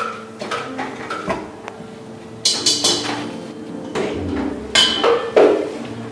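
Metal scoop scraping and knocking against a stainless steel bowl as thick ice cream is stirred and scooped, in a run of irregular clinks and scrapes.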